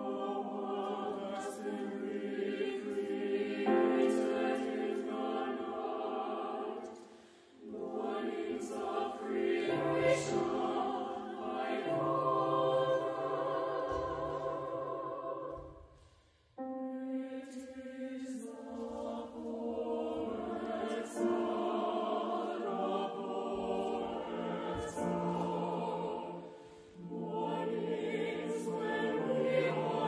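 Mixed choir singing a slow classical choral piece in sustained phrases, with deeper voices coming in about ten seconds in. The singing drops away briefly three times, between phrases.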